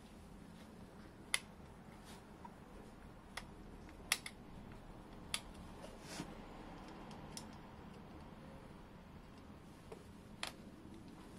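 Sparse, irregular small clicks and taps, about seven in all, the loudest about a second in and about four seconds in, from tools and small metal parts being handled while a moped carburettor is taken apart.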